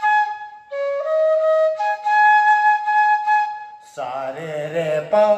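C-sharp bamboo bansuri playing a slow phrase of long, clean held notes that step from one pitch to the next. About four seconds in the flute stops and a man's voice comes in briefly.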